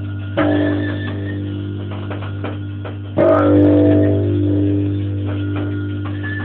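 Electric bass played through a guitar amp, giving it an odd, guitar-like tone. Two notes are struck, about half a second in and again about three seconds in, and each is left to ring out slowly over a steady low hum.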